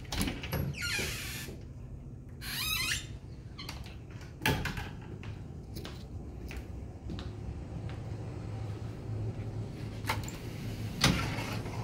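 Louvered bifold closet doors being handled and opened: two short rubbing, sliding scrapes in the first few seconds, then several sharp clicks and knocks as the panels fold and latch.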